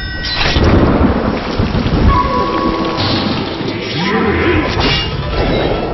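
Heavy rain with thunder rumbling, a dense steady downpour, with faint music underneath.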